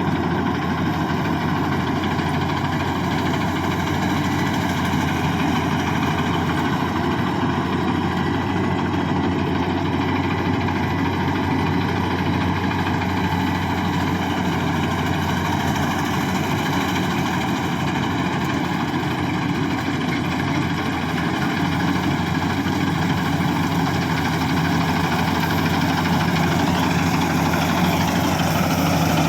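Rice combine harvester running steadily, its engine giving a continuous, even drone.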